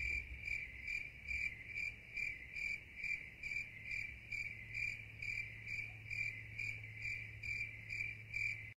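A cricket chirping steadily and evenly, about two chirps a second, over a low steady hum.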